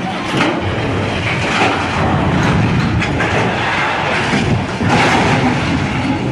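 A large lattice-boom crawler crane toppling over and crashing to the ground: a continuous loud crashing and rumbling of heavy steel, with harder surges about half a second in and again near five seconds.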